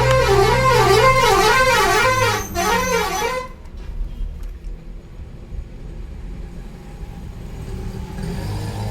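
A vehicle's warbling horn, its pitch swinging up and down about twice a second over a low engine hum. It cuts off about three and a half seconds in, leaving a faint low rumble.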